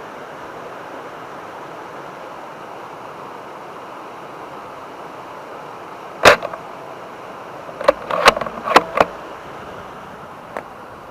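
Sniper-style air gun firing one sharp shot about six seconds in, over a steady background hiss. About a second and a half later come four or five quick sharp clicks, then one faint click near the end.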